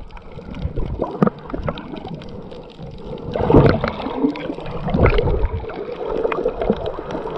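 Muffled underwater sound picked up by a submerged camera: water gurgling and bubbling around a swimmer in fins, with a few dull thumps from her movements.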